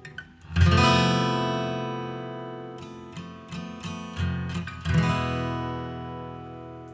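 Background music on solo acoustic guitar: a strummed chord about half a second in that rings out and fades, a few single plucked notes, then another strummed chord ringing out.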